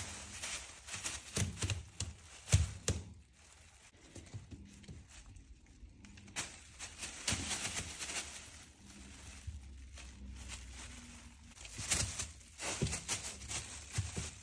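Kittens tussling over a ribbon: irregular taps, thumps and rustles from paws and bodies on a wooden floor, with one sharper knock about two and a half seconds in.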